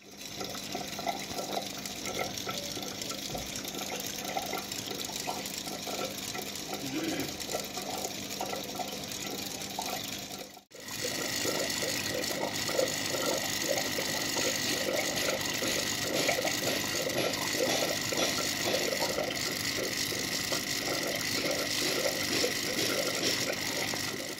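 Aquarium water running and bubbling, the steady noise of the tank's filtration. The sound cuts out for a moment about ten seconds in. After that a thin steady high whine sits over the water noise.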